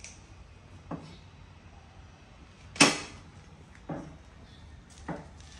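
Four sharp knocks of hard objects being set down or bumped together during kitchen work, the second one much louder than the others.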